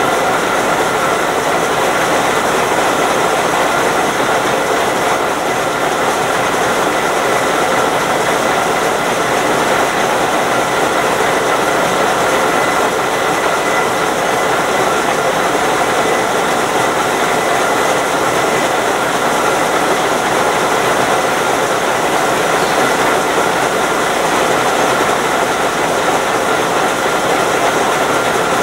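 TU4 narrow-gauge diesel locomotive idling at a standstill: a steady engine drone with a faint steady high whine.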